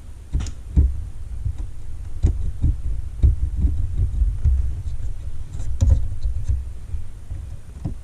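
Low rumbling handling noise with irregular soft knocks and bumps, a couple of them reaching higher, as things are moved about close to the microphone.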